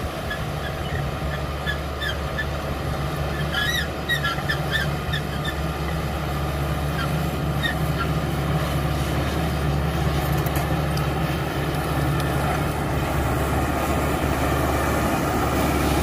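CAT D5K XL bulldozer's diesel engine running steadily under load as it pushes earth with its blade, getting a little louder toward the end. A brief run of short high chirps sounds about four seconds in.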